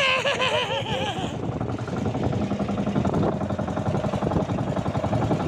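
Small engine of an outrigger bangka running steadily with a fast, even beat, with a man's voice over it for about the first second.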